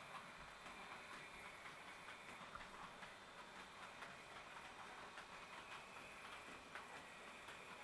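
Faint, irregular clicking of a Roco HO-scale model locomotive running slowly over the track joints and points, with a faint steady high whine.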